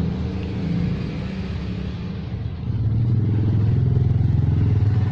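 A motor vehicle's engine running steadily. About two and a half seconds in, it drops to a lower, louder note.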